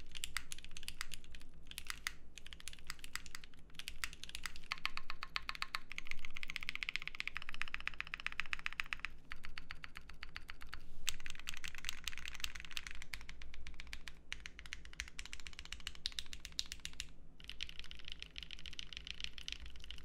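Fast, continuous typing on a Vertex Angle mechanical keyboard: Gateron CJ linear switches under GMK keycaps, with an aluminum plate and a silicone dampening pad, which makes the alpha keys sound muted. The clatter runs in long runs broken by a few brief pauses.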